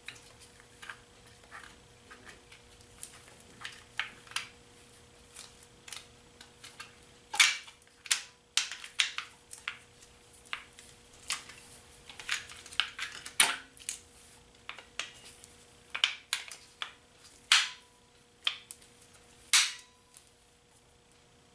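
Honda CT70 drum-brake shoes and their return springs clicking and clanking against the metal brake panel as they are worked into place by hand. The clicks are irregular, with a few sharper, louder knocks among them.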